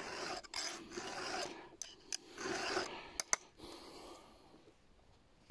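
Round file rasping across the cutters of a chainsaw chain in several short strokes, with a few sharp metal clicks as the file meets the chain. It is deburring the outside of the teeth and finishing the sharpening. The strokes stop after about three and a half seconds.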